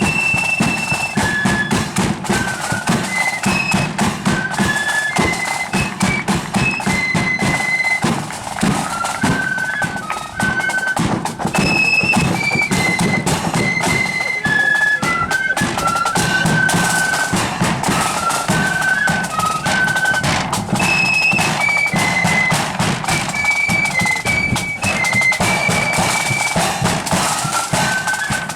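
A marching flute band playing a tune: a high melody of short and held flute notes over steady drumming.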